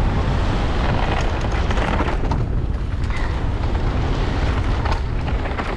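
Wind buffeting a helmet-mounted GoPro's microphone as a downhill mountain bike descends at speed, a steady heavy rumble mixed with tyre noise and scattered clicks and knocks from the bike over rough ground.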